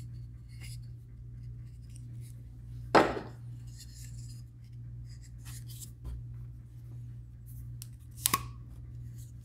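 Hands handling a silicone mold and its wooden backing boards: a loud knock about three seconds in as a board meets the mold, small clicks and rubbing, and a sharp double snap near the end as a rubber band is stretched around the block. A steady low hum runs underneath.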